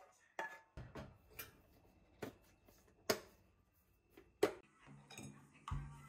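Metal fork clinking against a ceramic plate as chunks of watermelon are speared: a string of about seven sharp clicks, the loudest a little past four seconds in. A low thump near the end.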